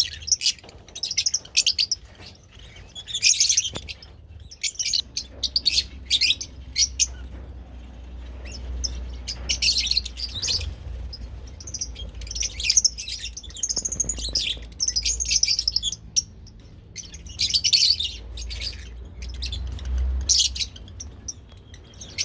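Lovebirds chirping and chattering in repeated bursts of short, high-pitched calls, over a faint low hum.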